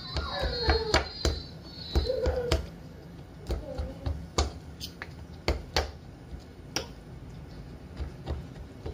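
A metal fork repeatedly jabbing pieces of marinated pork in a bowl, the tines striking the bowl in irregular sharp clicks, several a second.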